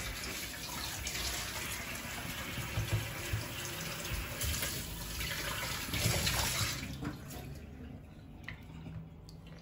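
Kitchen tap water running onto a plate in a stainless steel sink as raw mutton pieces are rinsed by hand; the running water dies away about seven seconds in, leaving a few faint knocks.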